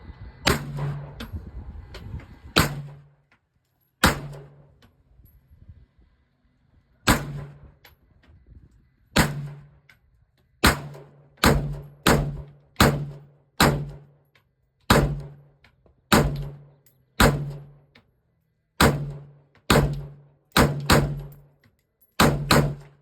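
Gunshots from an AR-style pistol fired one at a time, about twenty rounds at an uneven pace. Most shots come roughly a second apart, with a few quick pairs, and each sharp crack dies away in a short low ring.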